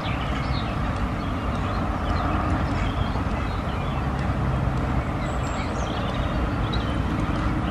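Steady rain falling on a fishing bivvy's fabric canopy, an even hiss with a low rumble underneath.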